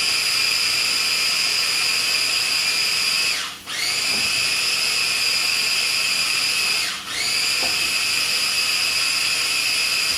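Electric food processor motor running with a steady high whine. It cuts out briefly twice and spins back up to speed each time.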